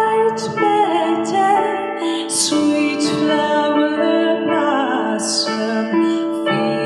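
A woman singing slow, sustained notes without clear words over a soft keyboard accompaniment, with short breathy sounds between phrases.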